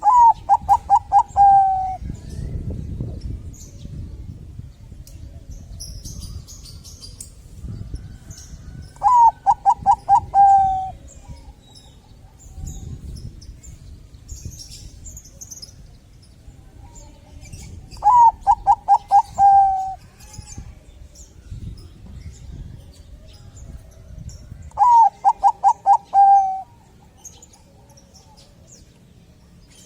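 Zebra dove (Bangkok-line perkutut) cooing: four song phrases several seconds apart, each a quick run of five or six clipped notes ending in a longer drawn-out note. Faint high chirps of small birds come between the phrases.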